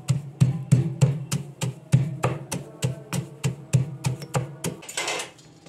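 Stone pestle pounding coarsely ground roasted rice in a granite mortar, steady strokes about three a second. The pounding stops near the end, followed by a brief rustle.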